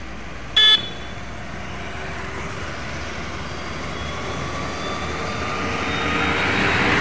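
Road traffic approaching: a motorcycle and a truck drawing near, their engine and tyre noise growing steadily louder toward the end. Under a second in, a short, sharp beep stands out as the loudest sound.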